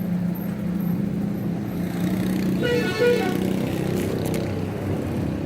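A motor engine running steadily, with a short horn toot about three seconds in.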